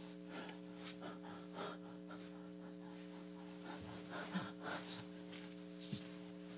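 A woman's faint, uneven breathing and short gasps, acted as if out of breath, over a steady electrical hum.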